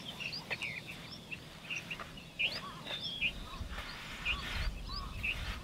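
Small birds chirping, many short quick calls that bend up and down, with a soft rubbing sound of bajra dough being kneaded by hand, strongest about four seconds in.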